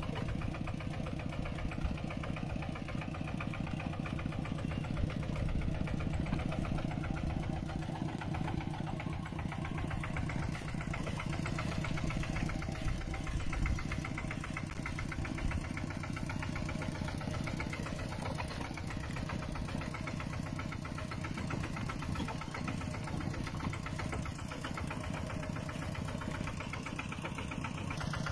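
Mini tractor engine running steadily, its rapid firing pulses even and unbroken.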